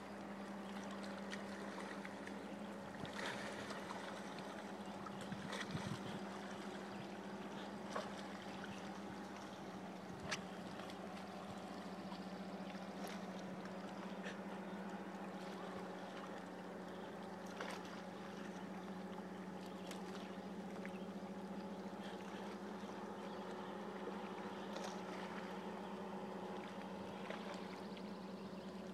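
Boat motor running steadily with a constant hum, with a few short sharp ticks.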